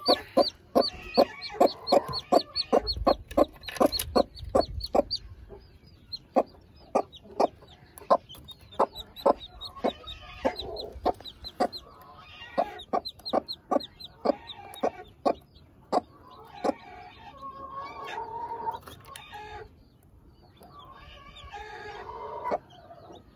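Newly hatched chick peeping over and over: short, high, falling peeps about three a second, thinning out after about five seconds. From about sixteen seconds in, longer and lower adult chicken calls join in.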